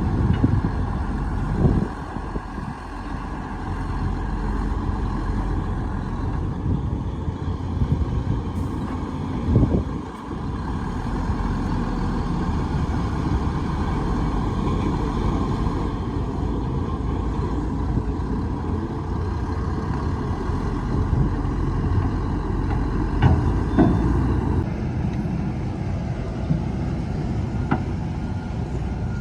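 Heavy diesel earthmoving machinery running steadily under load, with a few short clanks.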